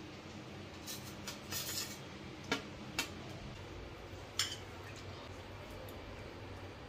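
Stainless steel ladle and serving spoons clinking against steel bowls and pots as food is served: a run of short, sharp clinks, the loudest about two and a half and three seconds in and one more past four seconds, over a steady low hum.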